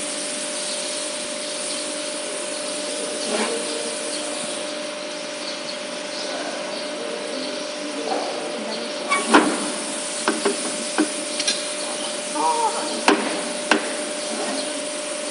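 Steady hiss with a faint hum, and from about nine seconds in, scattered sharp knocks and scrapes of a shovel and tools working in foundry sand around a freshly poured casting.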